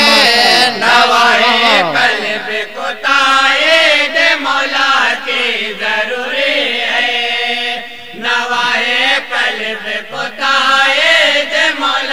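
A group of men chanting an Urdu naat, a devotional poem in praise of the Prophet, in chorus, with the voices sustained and sliding through long melodic lines.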